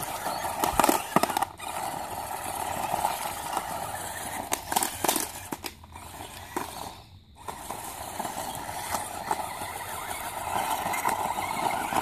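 Electric motor of a spiky-wheeled remote-control toy whirring as it drives over dry dirt and leaves, with a few light clicks; the whir cuts out briefly twice around the middle.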